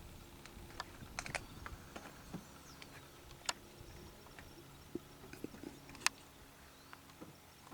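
Faint, steady drone of a distant engine, with scattered sharp clicks and ticks over it.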